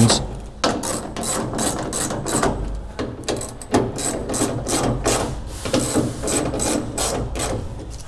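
Ratchet wrench clicking in quick repeated strokes as the bolts of a truck door's striker plate are loosened and reset.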